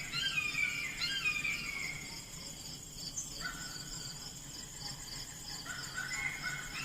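Insects chirping in a steady, even pulse, with a bird singing short falling phrases in the first two seconds and again near the end.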